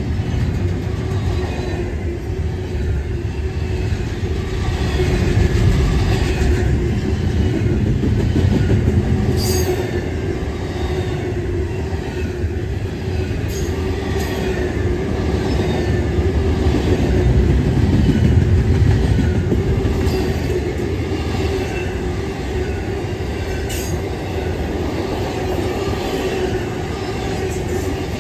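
Double-stack intermodal well cars of a freight train rolling past at close range: a steady low rumble of wheels on rail with a thin steady tone over it and a few sharp clicks.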